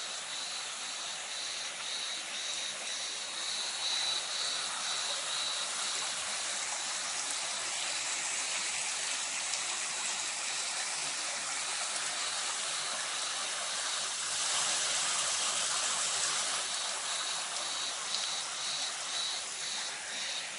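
Creek water rushing steadily, louder for a couple of seconds about fifteen seconds in. An insect chirps in an even rhythm of about two chirps a second at the start and again near the end.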